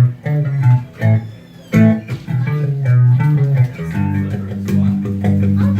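Guitar music with a bass guitar: plucked notes over a steady bass line, an instrumental passage of the song.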